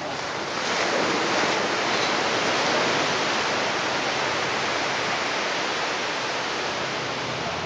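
Surf washing up on the beach: an even hiss that swells over the first second, then slowly fades.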